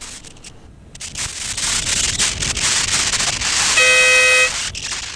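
Denali SoundBomb Split dual-tone air horn on a motorcycle, sounded once in a short steady blast of under a second, about four seconds in, to warn a driver pulling out. Around it, the rushing wind and road noise of the moving motorcycle.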